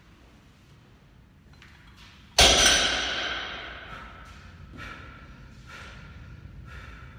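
Heavily loaded barbell with bumper plates landing on the rubber gym floor at the end of a deadlift rep about two and a half seconds in: one heavy thud with a metallic ring from the bar and plates that fades over about a second and a half. A few fainter knocks follow.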